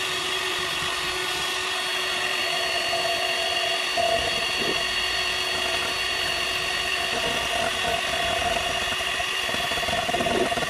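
Electric hand mixer running steadily at one speed, its wire beaters whisking egg whites in a stainless steel bowl toward stiff peaks for meringue.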